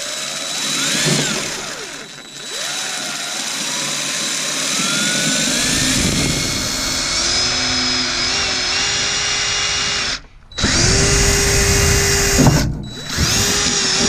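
Power drill boring the mounting holes around the water heater, its motor whine climbing in pitch over a long run. It stops briefly about ten seconds in, then runs twice more at a steadier pitch.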